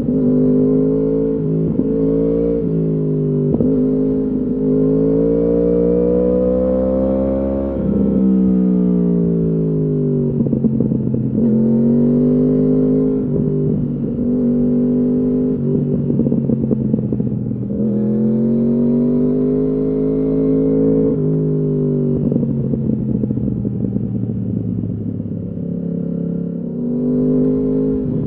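Yamaha R1's crossplane inline-four engine through a full Akrapovič exhaust, pulling hard under acceleration and easing off in turn, its pitch climbing steadily for several seconds and then falling away, several times over.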